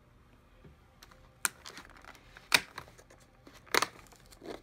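Fingers tapping and prising open the perforated cardboard door of a chocolate advent calendar: a few sharp clicks with lighter ticks between, the loudest about two and a half seconds in.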